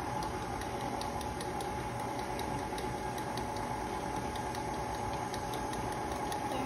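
Electric tilt-head stand mixer running steadily with its flat beater in cake batter: a constant motor hum with a light, regular ticking about three times a second.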